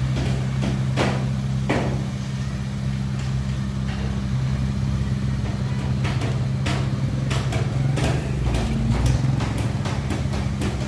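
Diesel engine of heavy earthmoving machinery running steadily, its note shifting briefly about eight seconds in, with repeated sharp clanks and knocks over it, most frequent in the second half.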